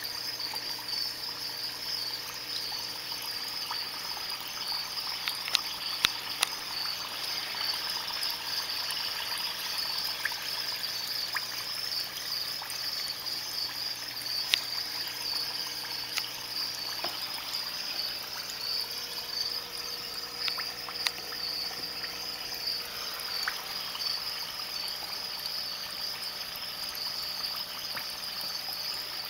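Aquarium air-pump bubbler in a shallow gravel water dish, bubbling and ticking with scattered small pops over a faint pump hum. A continuous high-pitched trill runs steadily through it.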